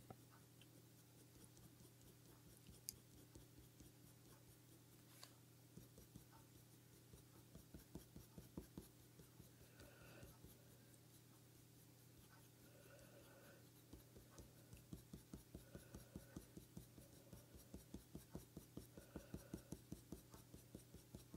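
Faint scratching of a colour pencil on hot-press paper: quick short strokes, about three a second, in a brief run and then a longer one from about two-thirds of the way in, as the pencil blends shading.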